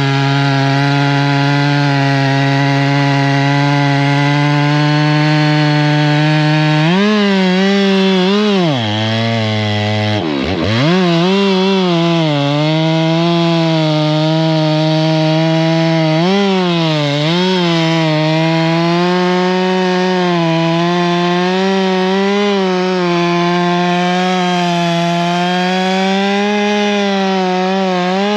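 Two-stroke chainsaw running at high revs while cutting wood, its pitch wavering as the load changes. About ten seconds in the engine speed drops sharply, then picks back up.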